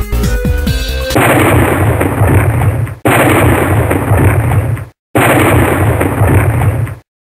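Electronic intro music, giving way about a second in to a loud sound-effect noise with a deep low end, in three bursts of about two seconds each with brief silent gaps between, cut off suddenly near the end.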